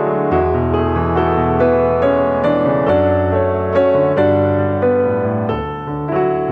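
Background piano music, with melody notes struck over held bass notes.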